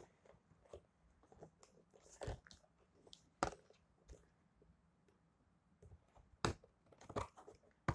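Scissors cutting and jabbing through a taped cardboard toy box: irregular crunches and snips, the loudest about three and a half and six and a half seconds in.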